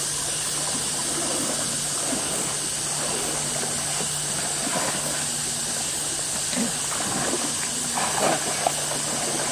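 Steady rush of fast-flowing, turbulent floodwater, with faint scattered voices of men around it.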